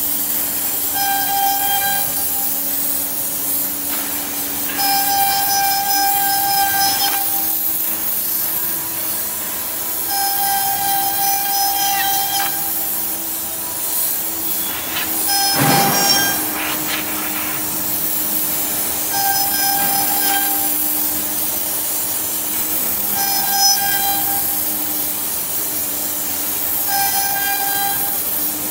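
CNC wood router's spindle running steadily as the bit cuts through a wooden sheet, with a constant high hiss from a hand-held air nozzle blowing away the chips. A whining tone comes and goes about seven times, each lasting a second or two. A short louder burst comes about halfway.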